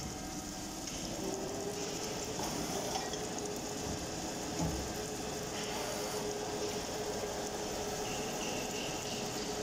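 Circular cold saw blade cutting slowly through a thick metal tube under flowing coolant: a steady hiss with a steady hum underneath.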